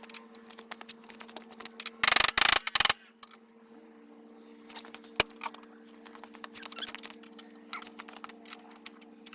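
Metal clicks, clinks and knocks of tools working on a snowmobile's track adjusters, over a steady hum. About two seconds in comes a loud, harsh burst of noise in three quick pulses, and a single sharp knock follows a few seconds later.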